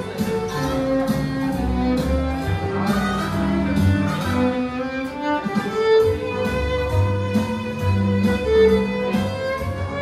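Violin playing a melody of held notes over a backing track with a steady beat.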